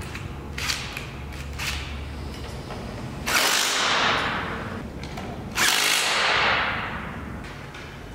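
Cordless power drill/driver run in two bursts of about a second and a half each, fastening the mounting hardware of a roof-rack awning, after a few light clicks and knocks.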